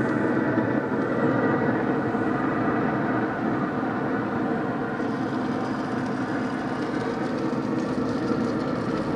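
A steady mechanical drone with no distinct knocks or changes.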